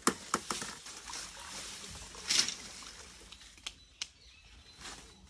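Sweeping and cleaning work on a tiled stupa: scattered sharp knocks and clicks as things are handled, and a brief scratchy swish of a twig broom about two seconds in.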